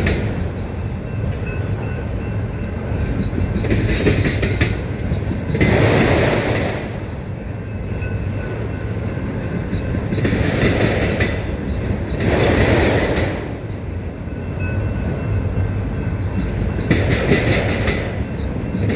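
Autorack freight cars rolling past on the rails: a steady rumble, with bursts of wheels clicking over rail joints every few seconds.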